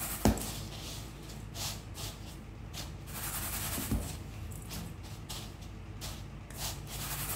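Hands pressing a chicken fillet into dry breadcrumbs in a stainless steel bowl: irregular crumbly rustling and rubbing, with two soft knocks, one just after the start and one about four seconds in.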